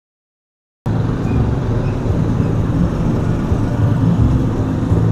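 Silence for about the first second, then a loud, steady, low rumble of a motor vehicle's engine cuts in suddenly.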